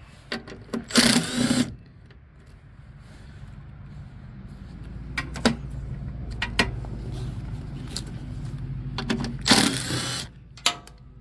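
Half-inch socket wrench backing out the last belly-pan bolts on a snowblower: a few metal clicks, then two short, loud whirring runs, one about a second in and one near the end. A low steady hum rises underneath in between.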